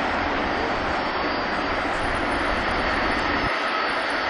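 Airbus A380's four jet engines on final approach to landing: a steady, loud rush of jet noise with a faint whine over it.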